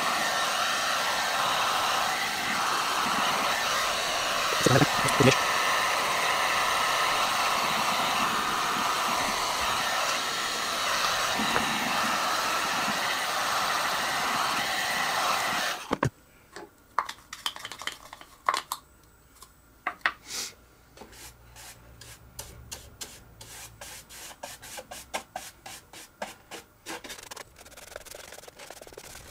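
Electric hot air gun blowing a steady rush of air to dry fresh grey paint on a wooden model fuselage, with a couple of light knocks about five seconds in; the gun switches off abruptly just over halfway through. After that, quiet scratchy strokes of a paintbrush on the wood.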